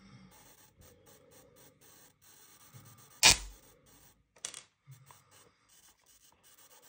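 Quiet room tone broken by one sharp, loud crack a little past three seconds in, followed by a fainter click about a second later.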